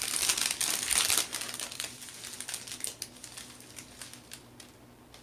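Small plastic baggies of diamond-painting crystal drills being handled and sorted, crinkling densely for about the first two seconds, then thinning to scattered small crackles.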